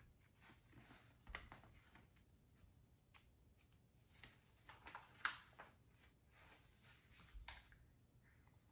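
Faint rustling and soft swishes of paper as the pages of a paperback picture book are turned and handled, a few separate swishes with quiet between them.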